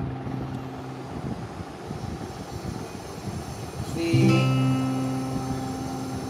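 Background acoustic guitar music: a strummed chord rings until about a second in, then a new chord is strummed about four seconds in and held.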